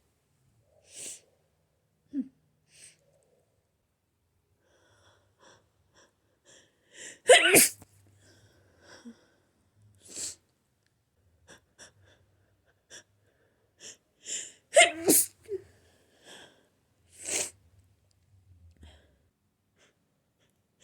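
A person with a cold sneezing several times, with short sniffs and breaths building up between the sneezes. The loudest sneeze comes about seven seconds in, with more strong ones around ten, fifteen and seventeen seconds in.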